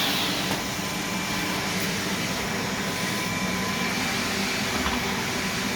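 Vacuum cleaner running steadily, an even whooshing motor-and-airflow noise with a faint constant whine.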